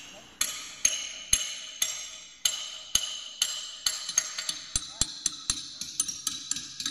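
Hand hammer striking the steel tube sheet and tubes of a turbine oil cooler tube bundle, about two blows a second and quicker near the end, each blow followed by a short metallic ring. This is the knocking used to drive the cooler tubes during tube replacement.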